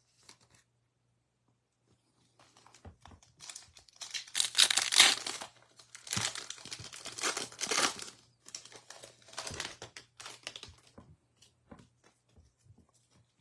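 Plastic wrapper of a Panini Contenders football card pack being torn open and crinkled by hand. It comes in crackling bursts after a couple of seconds of quiet, is loudest in the middle, and dies away near the end.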